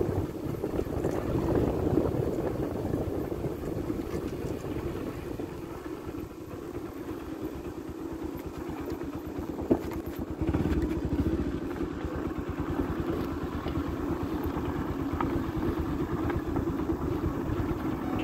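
Motorcycle engine running steadily while riding, with a single sharp knock about halfway through.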